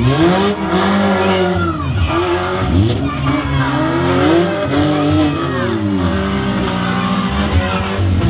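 Demolition derby cars' engines revving hard, several at once, their pitch climbing and falling again and again as the cars spin and ram each other.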